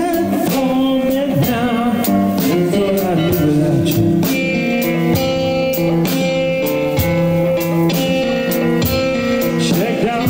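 Live band music: guitar playing over a drum kit that keeps a steady beat, with cymbal strokes about twice a second.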